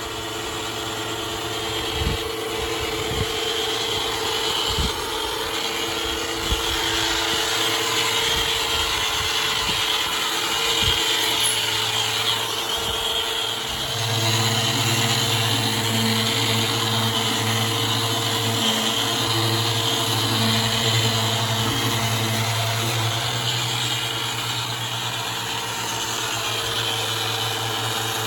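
An electric power tool running steadily, with a few knocks in the first seconds; its hum grows stronger about halfway through.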